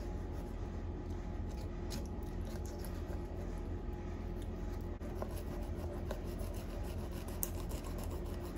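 Fillet knife sawing into a peacock bass just behind the gill: soft, repeated scraping and rubbing of the blade through scales and flesh, with faint ticks, over a steady low hum.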